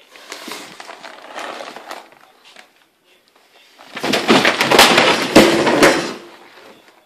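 Crinkling and rustling of a plastic cat food bag stuck over a cat's head, in a first spell lasting under two seconds. About four seconds in comes a louder two-second clatter: the cat falls off the bookshelf, books knock down onto the floor, and the bag rustles as the cat scrambles away.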